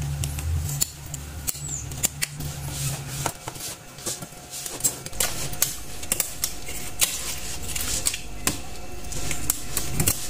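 Kitchen scissors snipping through a porcupine fish's spiny skin: a run of irregular sharp clicks, with a low hum under the first three seconds.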